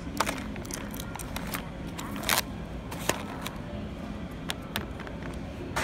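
Plastic-wrapped produce handled in a shopping cart: scattered sharp clicks and crinkles of plastic packaging, the loudest a little over two seconds in, over a steady low background rumble.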